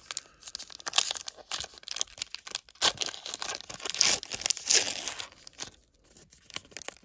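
Foil wrapper of a 2021 Diamond Kings baseball card pack being torn open by hand: irregular crackling and crinkling of the wrapper, dying down about five and a half seconds in.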